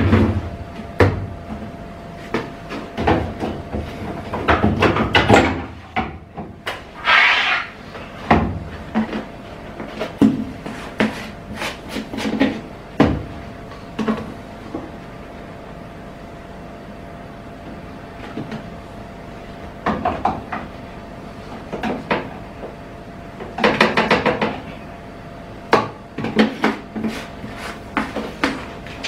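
Irregular knocks, clicks and clatters from handling a front-loading washing machine: loading the drum and working the detergent drawer, with two brief rushing noises. A faint steady hum runs underneath.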